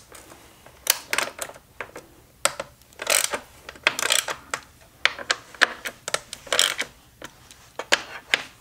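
Irregular clicks and clinks of hand tools and small parts being handled, with a few short scraping rattles in between.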